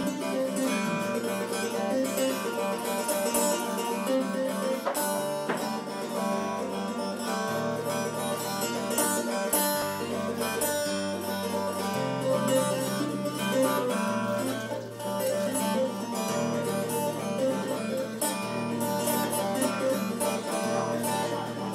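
Acoustic guitar music with a bass line moving between held notes every second or two.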